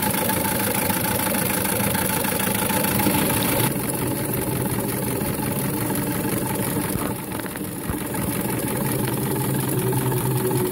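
Live-steam model steam lorry's engine running under load as it pulls up a grade in low gear: a fast, even mechanical beat with a steady whine from its gearing.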